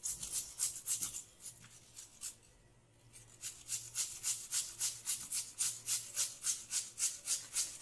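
Peeled raw potato rasped up and down a coarse stainless-steel box grater in a quick, even rhythm of about four strokes a second, with a short pause about two and a half seconds in.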